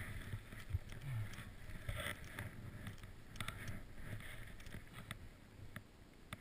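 Skis hissing through deep powder snow on a fast descent: a steady rush that swells and fades every second or so, with a few light clicks.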